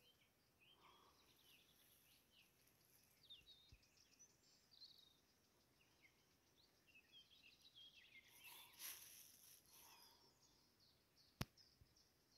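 Faint birdsong: many short chirps and trills from small birds over a quiet background, with a single sharp click about eleven seconds in.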